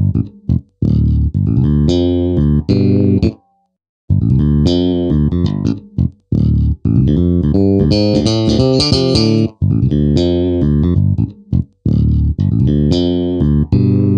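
Background music built on bass and guitar riffs, played in choppy stop-start phrases that stop dead for about half a second a few seconds in.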